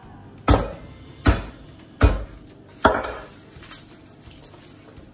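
Four heavy thumps on a wooden cutting board, about a second apart, as garlic is smashed to loosen the cloves for peeling.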